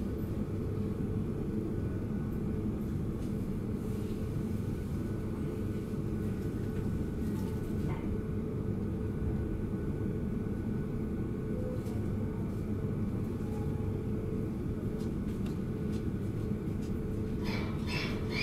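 Steady low hum inside a 789-series electric limited express car standing still at a platform, with a faint steady whine above it. A few light clicks come near the end.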